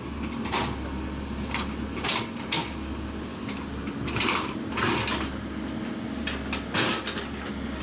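Diesel engine of heavy machinery, most likely the excavator, running with a steady low hum, broken by about half a dozen sharp knocks or clanks spread over the stretch.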